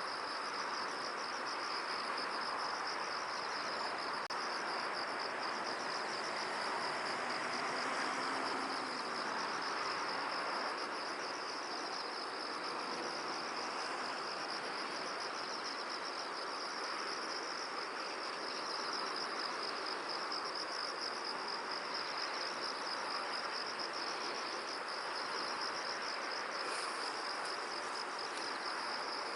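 An insect trilling continuously, a high, steady, fast-pulsing note, over an even hiss of wind across the field.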